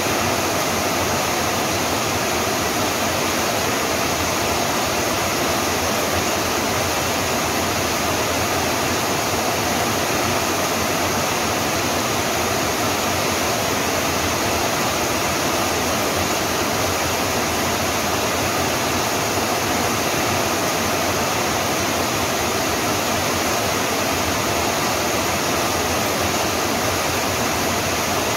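Rain falling steadily, an even unbroken hiss.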